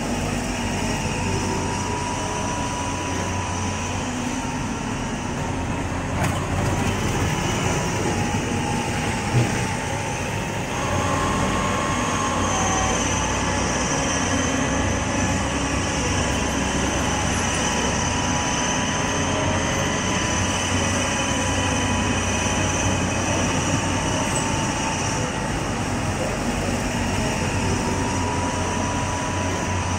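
Diesel engine and hydraulics of a rail track-laying machine running steadily, with a high whine throughout as its crawler unit is swung and lowered, and a single sharp knock about nine seconds in.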